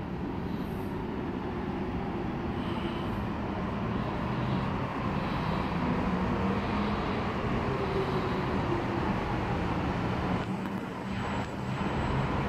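Alstom Metropolis metro train approaching and entering the station, a steady rumble with shifting motor tones that grows louder, briefly dipping about eleven seconds in.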